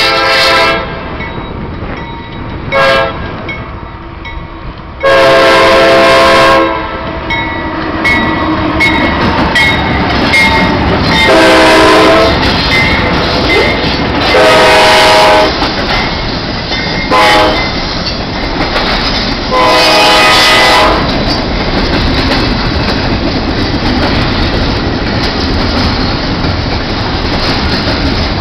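The lead Norfolk Southern diesel locomotive's multi-note air horn sounds a series of blasts for the grade crossing, several long and a few short, through about the first twenty seconds. The locomotives and then a long intermodal train of container and trailer flatcars roll past with a steady rush of wheels clattering over the rail joints.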